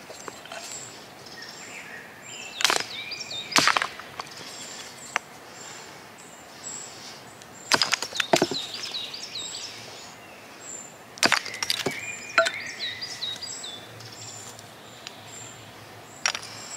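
Hand-forged hunting hatchet splitting short lengths of wood on a chopping stump: several sharp chops a few seconds apart, some in quick pairs. Birds chirp steadily in the background.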